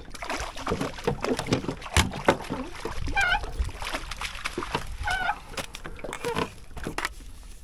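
Knocks and clatter of fishing gear and a landing net being handled in a boat while a hooked fish is played. Two short wavering high calls sound about two seconds apart, near the middle of the stretch.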